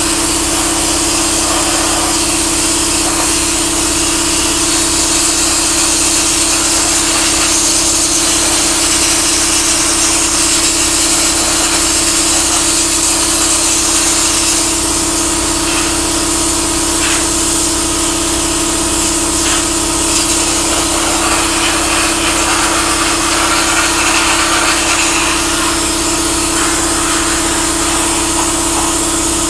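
Pressure-pot sandblaster blasting abrasive onto the sheet steel of a 1936 Ford truck hood: a loud, steady hiss of air and sand, with a steady hum underneath.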